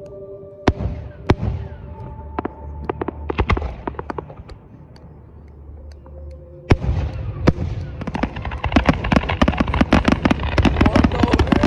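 Aerial fireworks display: scattered booming shell bursts and pops, with a big boom about seven seconds in, then from about eight seconds a dense, rapid run of bursts and crackling.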